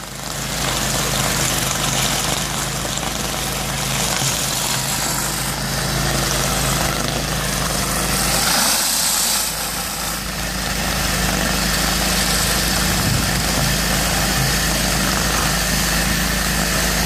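Hot-water pressure washer running while a rotary surface cleaner with vacuum recovery sprays brick pavers: a steady engine drone under a broad hiss of high-pressure water.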